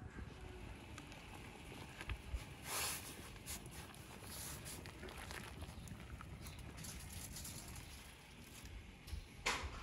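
Metal tongs lifting boiled herbs out of a pot of hot broth, with liquid dripping and pattering back into the pot and two brief splashes, one about three seconds in and one near the end, over a low steady rumble.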